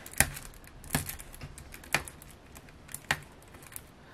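Fingernails clicking and scratching on the edge of a shrink-wrapped plastic CD jewel case while picking at the cellophane wrap to find its pull tab: four sharp clicks about a second apart, with fainter ticks between them.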